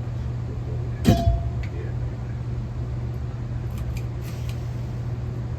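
30-inch SMC hugger ceiling fan running with a steady low hum. About a second in there is a single sharp knock.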